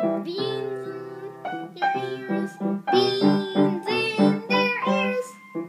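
A young boy singing while he plays the piano, with repeated chords under his sung melody.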